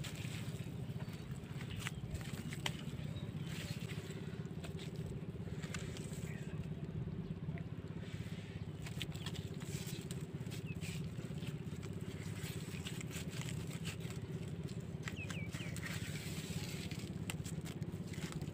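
A steady low engine drone runs throughout, with scattered clicks and wet squelches of hands working in soft pond mud around mud crabs.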